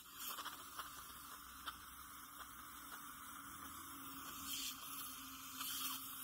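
Dental surgical suction hissing steadily, with two louder rushes in the second half as it draws in fluid, and a few faint clicks of metal instruments in the first three seconds.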